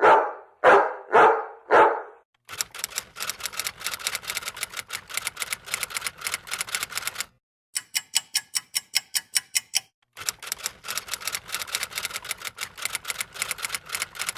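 Typewriter keys clacking in rapid runs, broken by a short pause and a stretch of more evenly spaced, sharper clicks. The run is opened by four loud dog barks, about half a second apart.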